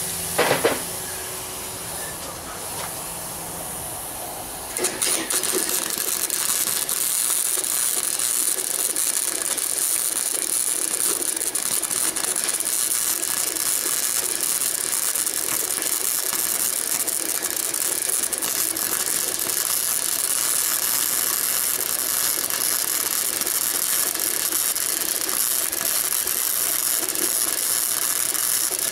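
Electric arc welder running a bead on steel angle iron: a steady, dense crackle that starts about five seconds in and holds without a break.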